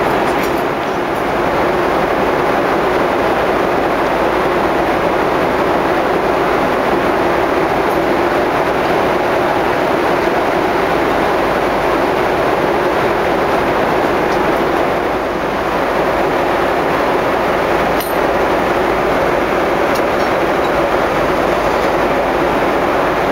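Steady rushing cabin noise of a jet airliner in cruise flight, from the engines and the airflow, with one brief click about eighteen seconds in.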